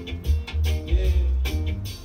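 Reggae record playing from a 7-inch vinyl single on a turntable: a heavy bass line under evenly spaced guitar strokes.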